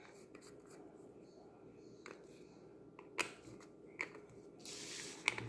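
Plastic PanPastel pans being handled and stacked on a table: a few light plastic clicks and taps, the sharpest about three seconds in, with a short rustle near the end.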